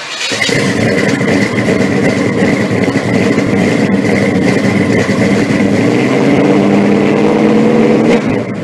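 A car engine running loud and rough, its pitch rising slightly in the second half as it revs.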